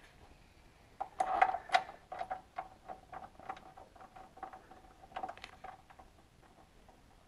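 Hand ratchet clicking in short irregular runs as engine mount bolts are tightened, about two or three clicks a second, over a faint steady hum.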